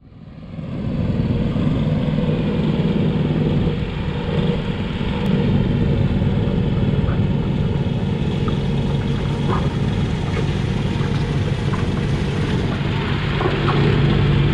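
Stock garden tractor's small engine running steadily under load as it pulls a weight-transfer sled, fading in over the first second and growing louder near the end as the tractor comes closer.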